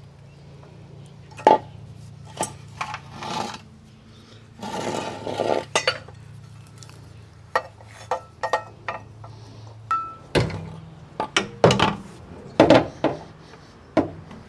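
New steel exhaust parts, a muffler and its pipes, being handled and fitted under a van: scattered metallic clinks and knocks with a short scrape about five seconds in, and the loudest clanks near the end as the muffler is lifted into place. A faint steady low hum runs underneath.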